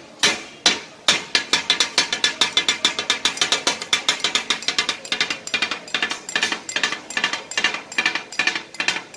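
Two steel chopping blades striking a large flat steel griddle in a rapid, even rhythm of ringing metallic clanks as meat is chopped for kata-kat, the clatter that gives the dish its name. After a couple of strikes, the steady run starts about a second in.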